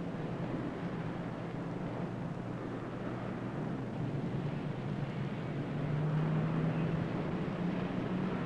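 City street traffic: a steady rumble of passing vehicle engines and road noise, with a low engine drone swelling a little about six seconds in.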